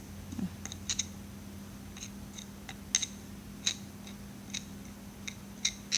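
A series of about a dozen sharp, irregular clicks and snips from hands working at vacuum-cleaner debris and parts, over a steady low hum.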